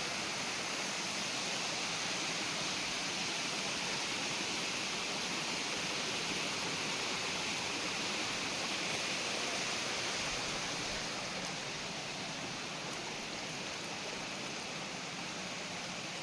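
Steady rush of water falling at a waterfall, an even hiss without a break, easing slightly about twelve seconds in.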